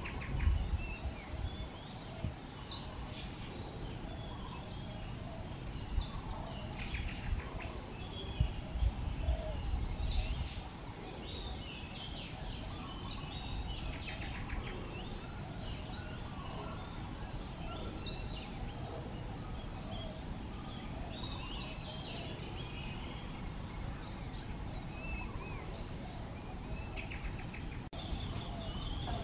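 Birds chirping and calling, many short high chirps throughout, over a low rumble that eases off after about ten seconds.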